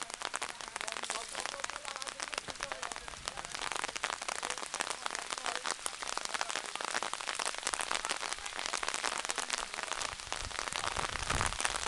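Rain falling steadily, a dense patter of drops that grows heavier toward the end.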